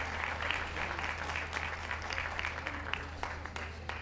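Audience applauding, many hands clapping, dying down near the end. A steady low hum runs underneath.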